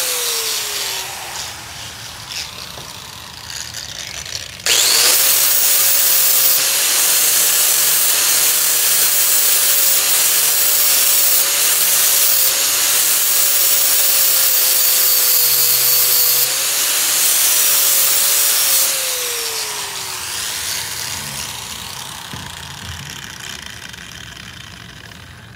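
Angle grinder with a flap disc grinding a steel butt weld down flush, the disc rasping on the steel under load. The motor winds down in the first second or so, starts again suddenly about five seconds in, runs steadily, then winds down with its pitch falling after about nineteen seconds and fades out.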